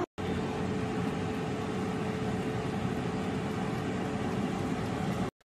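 Tefal Easy Fry & Grill Classic air fryer running: a steady whir from its fan with a faint constant hum, cutting off abruptly near the end.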